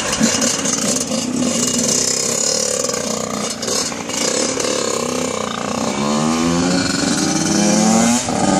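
Yamaha YZ85 two-stroke dirt bike engines revving as the bikes pull away, the pitch climbing, dipping at a gear change about eight seconds in, then climbing again. In the first half there is rustling and rubbing from the phone being handled.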